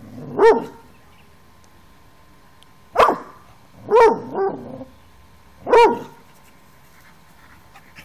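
Airedale Terrier puppy giving five short, high-pitched play barks at its toy while crouched in a play bow. Two come in quick succession about four seconds in, the second of them quieter.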